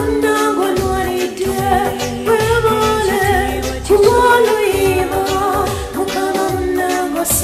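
Luganda gospel song: a voice singing a wavering melody over backing music with a deep, repeated bass line.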